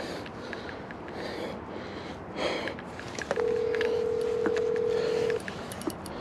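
Phone ringback tone heard through a phone's speaker: one steady two-second ring starting just past halfway, as a call goes out. Faint rustling and small clicks of handling around it.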